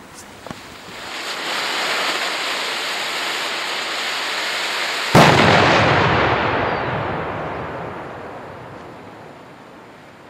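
A 30-gram 'Vlinder' firework hissing steadily as it burns for about four seconds, then one loud bang about five seconds in, with a long echoing tail that fades away.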